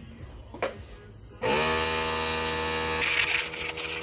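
A small electric motor starts about a second and a half in, buzzing steadily with a high hiss over it, and runs to the end.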